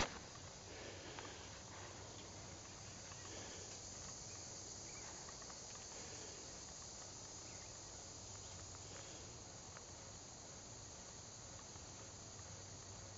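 Faint, steady high-pitched insect chorus of summer woodland, with no other sound standing out.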